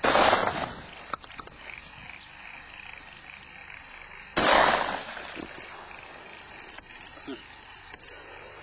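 Two shotgun shots about four and a half seconds apart, each a sharp report that fades over about half a second.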